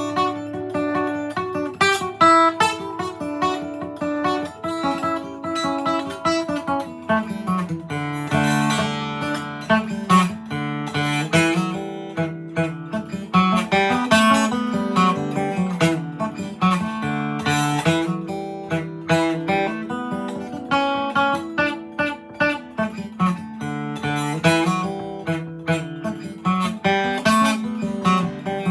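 Gibson J-45 steel-string acoustic guitar played solo: a quick, busy fiddle-tune melody of rapid picked notes over moving bass runs.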